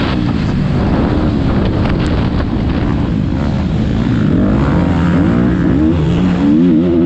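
Motocross bike engine heard from on board while racing, its revs rising and falling with the throttle and gear changes, dipping in the middle and climbing again near the end.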